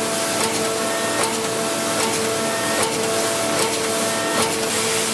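Ultra-high-pressure waterjet intensifier pump running: a steady hiss and hum whose tone changes about every second, with a faint click about every one and a half seconds as the stroke reverses.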